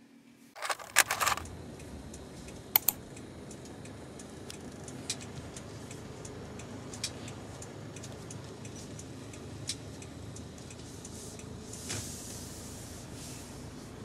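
Steady road and engine rumble inside a car's cabin, starting suddenly just after the start, with a short burst of clattering clicks about a second in and scattered light clicks and rattles after.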